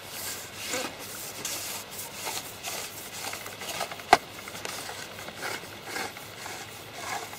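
Rubbing and scraping noises from fishing tackle being handled as a hooked crucian carp is brought in and lifted out of the water. The strokes come short and irregular, with one sharp click about four seconds in.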